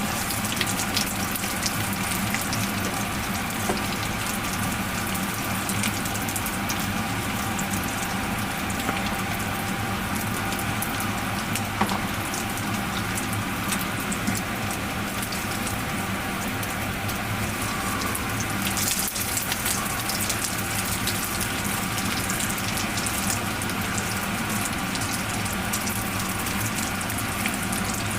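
Menchi katsu deep-frying in hot oil in a frying pan: a steady sizzle with dense fine crackling and no pause.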